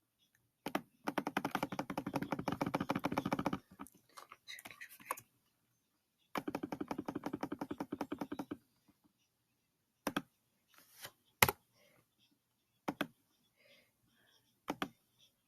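Clicking at a computer keyboard: two runs of rapid, even clicks of about two and a half seconds each, then a few single clicks spaced a second or two apart.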